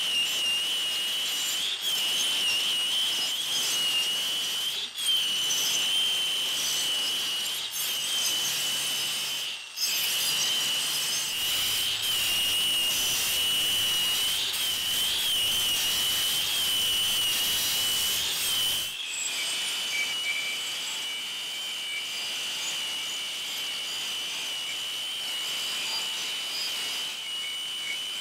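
Variable-speed angle grinder with an abrasive disc grinding down a weld bead on aluminium tube: a steady high motor whine that wavers slightly under load, over a rough grinding hiss, with a few brief dips. About two-thirds of the way through the sound changes abruptly to a quieter, smoother grind as a finer finishing disc takes over.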